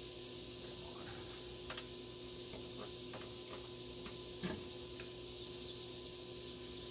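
A few faint clicks and small metal taps from hands and tools working at the spindle of a riding-mower deck, the sharpest about four and a half seconds in, over a steady hiss and hum.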